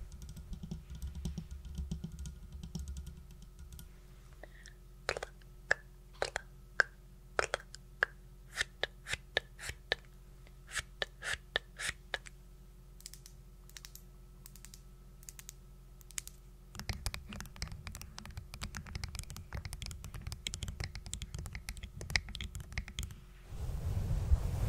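Quick, irregular light taps and clicks, spaced out at first, then running together into a dense crackle for several seconds near the end.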